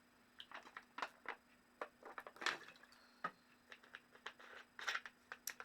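Faint, irregular clicks and small swallowing sounds of someone drinking water straight from the bottle.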